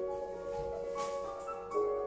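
Slow ambient background music of held, overlapping bell-like mallet notes, with a brief rustle about a second in.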